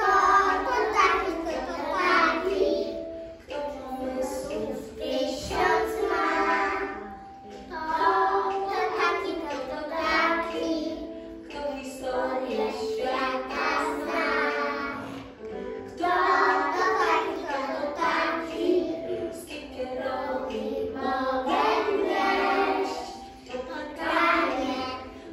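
A group of preschool children singing a song together in unison, in phrases of about four seconds with short pauses for breath between.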